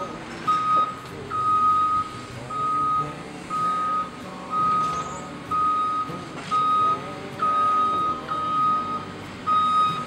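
Excavator's warning alarm beeping steadily, about one beep a second, over its diesel engine running, with a few faint knocks from the demolition.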